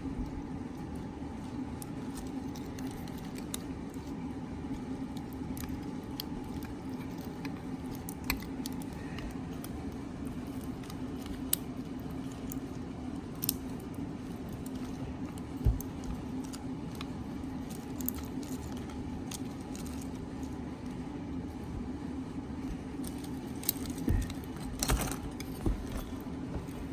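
Small, sharp plastic clicks and snaps as 3D-printed support columns are picked and broken off the print by hand, with a denser run of clicks near the end. A steady air-conditioner hum runs underneath.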